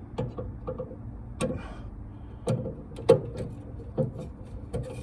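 Scattered light clicks and taps, about half a dozen spread irregularly, from the heat rod igniter and its mounting hardware being handled and set in place in a pellet smoker's firepot.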